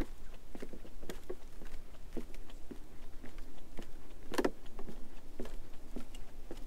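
Footsteps on a wooden duckboard path: hollow knocks on the planks about twice a second, uneven, with one louder knock about four seconds in.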